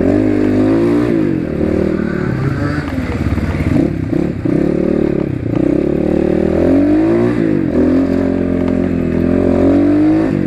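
Asian Beast 250 dirt bike's engine revving while riding, its pitch climbing through each gear and dropping at the shifts several times over.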